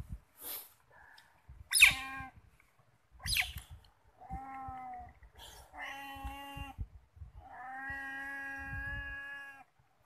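Otter calling: a few short, sharp squeaks, then from about four seconds in, three drawn-out whining calls held at a steady pitch, the last about two seconds long.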